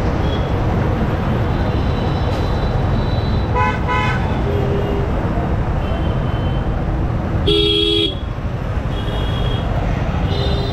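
Vehicle horns honking in dense city traffic: a short double beep about three and a half seconds in and a loud half-second blast about seven and a half seconds in, with fainter horn tones between. Underneath is a steady rumble of motorcycle engine and road noise.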